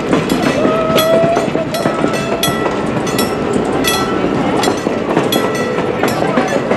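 Passenger cars of a train rolling past with a steady rumble, their wheels clicking over the rail joints about twice a second.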